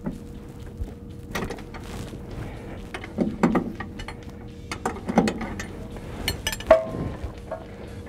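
Open-end wrench and socket ratchet working the locking nut on a volumetric concrete mixer's conveyor belt tension adjuster, loosening it: scattered metal clicks and clinks of steel tools on the nut and bracket.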